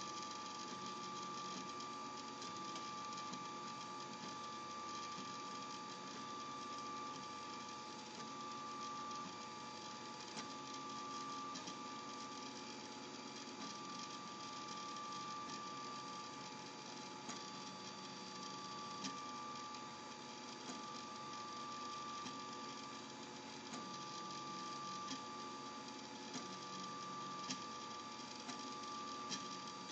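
Desktop FDM 3D printer printing: its stepper motors whine in steady tones that change pitch and stop and start every second or two as the print head and bed move, over a steady hum, with a few faint ticks in the second half.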